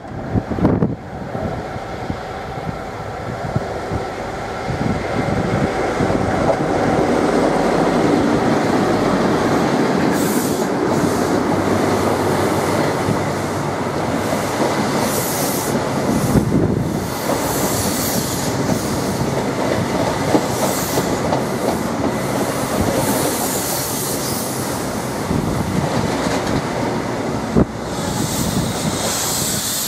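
InterCity 125 high-speed diesel train passing at speed: the power car comes up and goes by, then a long rake of Mark 3 coaches rushes past close by, wheels clattering steadily over the rails with some wheel squeal.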